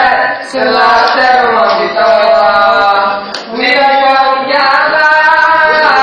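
A group of young voices singing together without instruments, holding long notes in phrases with brief breaks for breath between them.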